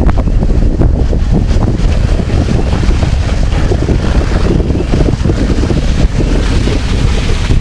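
Wind buffeting the microphone of a camera on a bicycle ridden through snow on knobbly tyres, a loud steady rumble with small knocks from the bumpy ride. The hiss grows brighter near the end.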